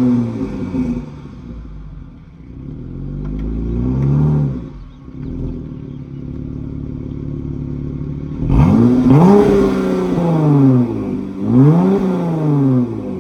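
Dodge Charger GT engine through Flowmaster 40 Series dual exhausts. It winds down from a rev, blips briefly about three seconds in and settles to a steady idle. Near the end it takes two sharp bursts of throttle, each rising quickly and then falling away.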